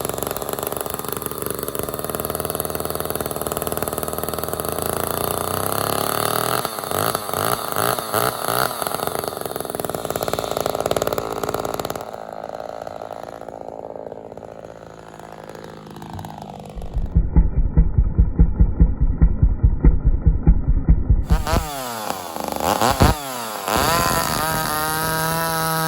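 Ported Homelite XL-76/XL-130 hybrid two-stroke chainsaw running and being revved up and down several times, with a quieter stretch in the middle and a steady high run near the end.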